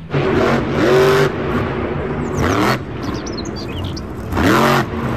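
Monster truck's supercharged V8 revving hard in three rising surges, about a second in, near the middle and near the end, over a steady loud rumble of engine and arena noise.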